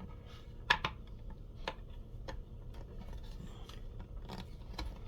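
Light clicks and taps of small parts being handled and fitted together during reassembly of a model-train transformer, about six in all, the loudest a quick pair under a second in.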